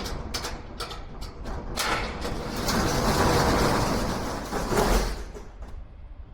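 A metal door being unlatched and slid or rolled open, with several clicks and knocks, then a rattling rush that builds and stops about five seconds in, over a low steady rumble.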